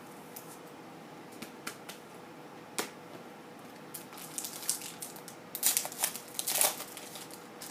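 Trading cards and a foil card-pack wrapper being handled: scattered soft clicks and rustles, with a run of louder rustling bursts about five and a half to seven seconds in.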